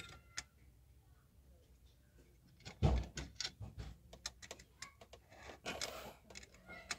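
Clicks and knocks of metal parts as the throttle cable is hooked onto a Hyundai H100 van's accelerator pedal, with a louder knock about three seconds in and a short scraping rustle near six seconds.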